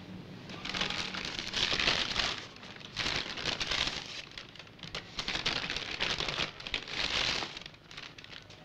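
A Burger King paper bag being opened and rummaged through, crinkling and rustling in several bouts as a paper napkin and a cardboard burger box are pulled out. Near the end the crinkling dies down to a few light taps.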